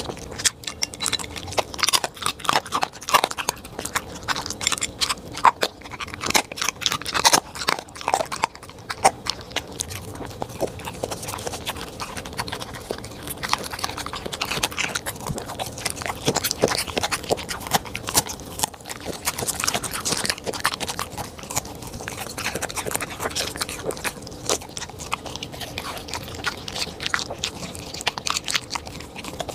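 A corgi crunching and chewing food from a plate, with quick irregular crunches throughout. The food is freeze-dried treats, cucumber slices and frozen berries.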